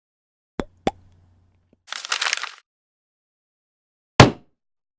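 Two sharp clicks, a brief rustling burst, then a single loud thump, separated by dead silence.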